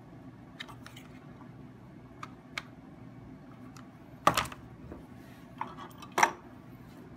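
Light clicks and taps on a wooden workbench, then two louder knocks about four and six seconds in as a hot glue gun is set down on the bench and a small wooden mousetrap car with CD wheels is picked up and handled.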